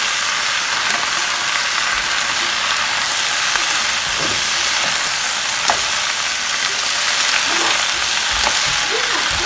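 Vegetables sizzling steadily as they stir-fry in a hot pan, still wet from washing, with a few light knocks as they are stirred.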